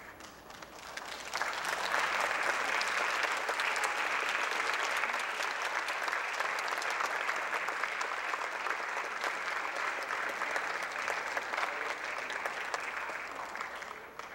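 Audience applauding: dense clapping that swells in over the first two seconds, holds steady, and tapers off near the end.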